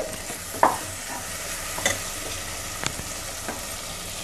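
Onion-tomato masala frying in freshly added ghee in a pressure cooker, sizzling steadily, while a metal spoon stirs it and knocks against the pot about five times.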